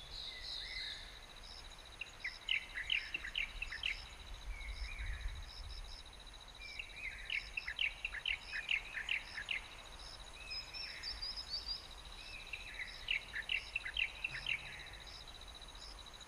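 A songbird singing a short phrase of rapid chirping notes about every five seconds, over a continuous high insect trill and a faint chirp repeating about twice a second.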